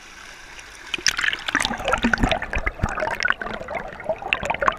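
Shallow creek water rushing over rocks. About a second in, the sound turns to dense crackling, bubbling and gurgling as it is heard from under the water's surface.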